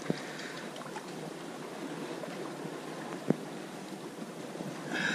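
Steady wash of sea waves, with a single sharp click about three seconds in.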